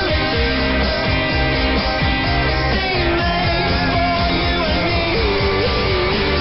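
Rock song with singing and electric guitar, heavily compressed and clipped by an aggressive shortwave-broadcast audio processor, so the loudness stays dead level. Everything above about 5 kHz is cut off sharply, giving the narrow, dense sound of AM shortwave audio.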